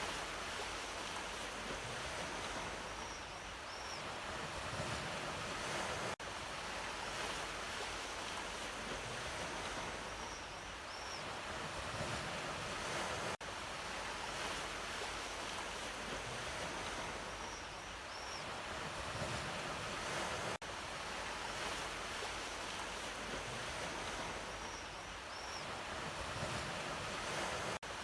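Ocean surf: waves washing in and drawing back in a steady wash of noise. The same stretch repeats about every seven seconds, with a brief dip in level at each join: a looped recording. A faint high double chirp comes once in each loop.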